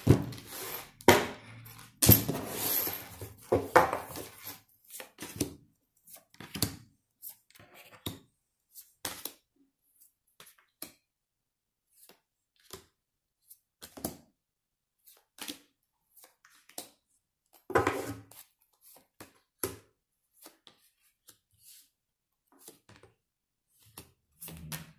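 A deck of tarot cards being shuffled by hand for the first few seconds, then individual cards drawn and laid down on the table: scattered soft taps and slaps of cards landing and sliding.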